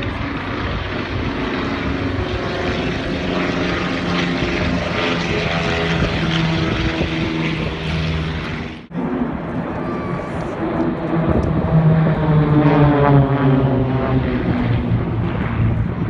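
Propeller-driven display aircraft engines droning overhead. There is an abrupt break about nine seconds in, and a little later the engine note falls in pitch as a plane passes.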